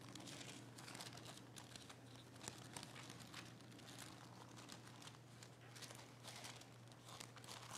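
Faint, irregular rustling and crinkling of thin Bible pages being leafed through to find a passage, over a steady low electrical hum.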